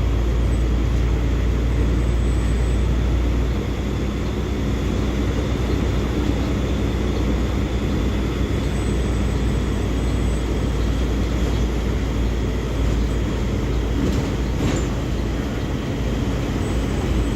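Mercedes-Benz OF-1724L bus diesel engine running steadily, its deep engine note easing slightly about three and a half seconds in. A brief knock near the end.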